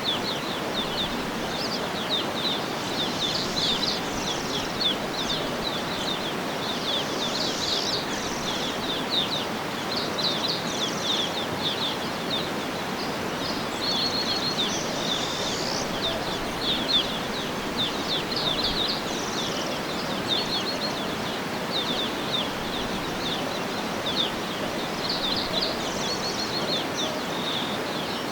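Birds chirping and trilling in quick, high runs, repeated every second or two over a steady, even rushing noise.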